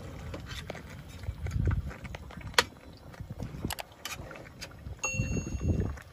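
Metal spatula clinking and scraping against a frying pan while stirring pieces of fish in yellow sauce, giving sharp clicks over a low rumble. A short high steady tone sounds about five seconds in.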